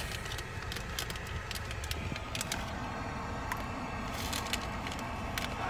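Steady low rumble of a car cabin, with scattered sharp clicks and crackles from the phone being handled.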